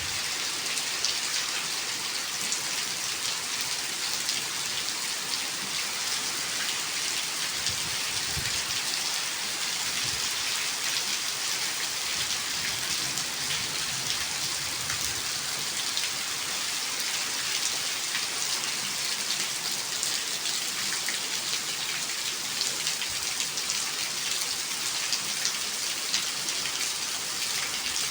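Steady rainfall, a dense even patter of drops striking surfaces, with a few faint low thuds a third of the way in.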